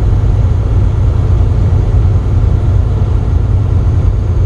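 Steady low rumble of a semi truck at highway speed, heard from inside its cab: engine, tyre and road noise.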